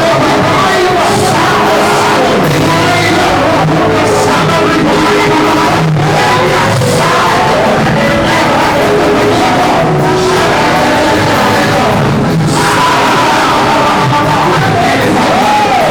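Live worship music with many congregation voices singing and calling out over it, loud and continuous.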